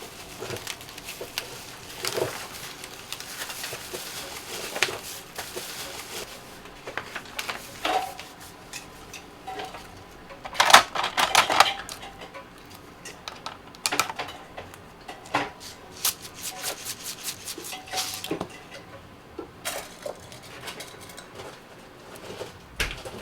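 Clinks, taps and knocks of kitchen utensils and containers being handled in food preparation. There is a louder clatter about ten seconds in, and a quick run of light ticks a little later.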